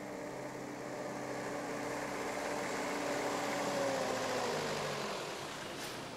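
A minivan's engine running as it drives up close and past, growing louder, then dropping in pitch as it goes by a little past halfway, and fading.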